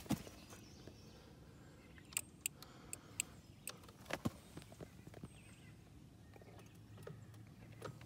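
Quiet outdoor background with a dozen or so faint, irregularly spaced clicks and taps.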